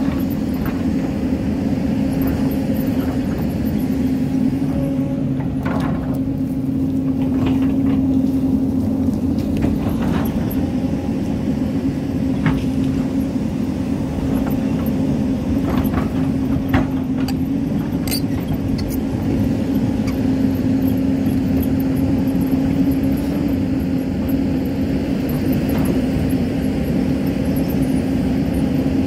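Hyundai hydraulic excavator's diesel engine running steadily with a constant low tone, as the bucket digs into a dirt bank. Scattered short knocks and clicks come through as the bucket teeth strike soil and stones.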